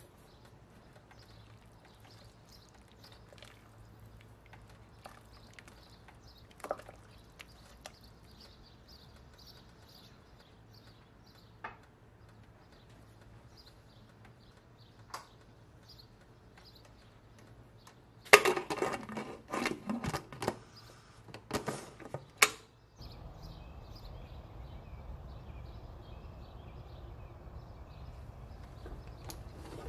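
Broth simmering quietly in an open stainless pressure cooker, with faint scattered pops. About 18 seconds in there are some four seconds of loud metal clattering as the pressure-cooker lid is set on and locked, and then a steady low rushing noise.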